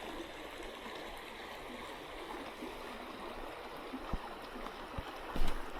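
Small creek water running steadily, a continuous rushing, with a few soft low knocks late on.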